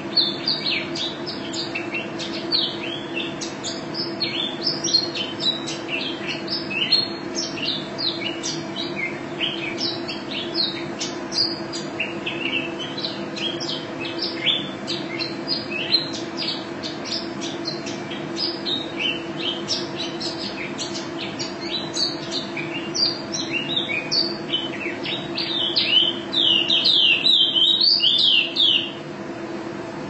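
Female white-eye (pleci) singing almost nonstop: a rapid stream of short, high twittering notes, building to a louder, denser rolling run near the end that stops abruptly. A steady low hum lies under the song.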